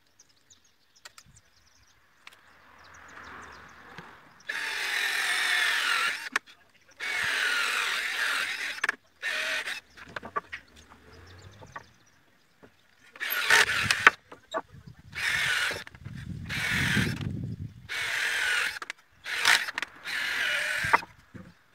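Cordless drill boring into a wooden slat, its motor starting and stopping in about nine bursts of up to two seconds, the whine shifting in pitch within each burst.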